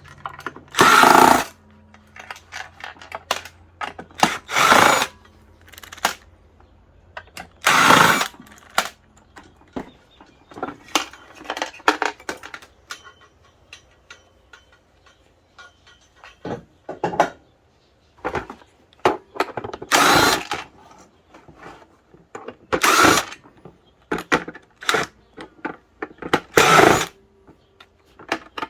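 Power drill backing out screws in short bursts of about a second each, with small clicks and rattles of plastic parts in between as the console's backing comes off.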